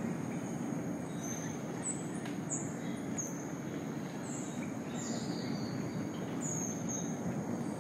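Rainforest ambience: a steady low rushing noise, with a series of short, high bird calls that sweep downward, about one a second, over a constant thin high tone.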